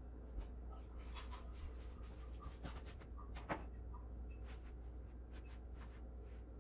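Quiet room tone: a steady low hum with a few faint scattered clicks, the sharpest about three and a half seconds in.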